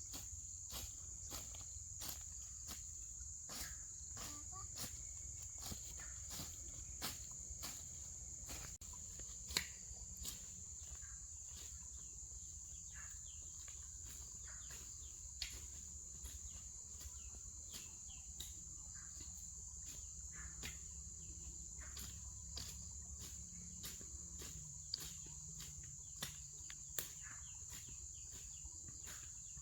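Insects chirring in one steady high-pitched drone, with scattered sharp clicks and taps throughout.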